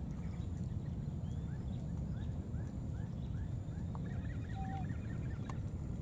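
Steady low rumble with faint high animal chirps: a run of short falling chirps about two a second, then a fast trill.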